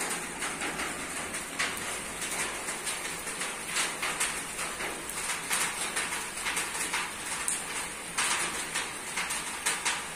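Rain falling on a roof: a steady patter with many separate drops ticking at an irregular pace.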